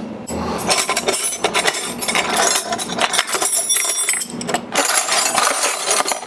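Metal wrenches clinking and clattering against each other, many small clinks in a row, as they are rummaged through in search of the right size, with a brief lull about four and a half seconds in.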